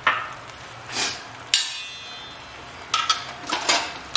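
A metal utensil clanking against a steel kadai: three sharp strikes a second or so apart, the third leaving a brief metallic ring, then a quicker run of clinks near the end.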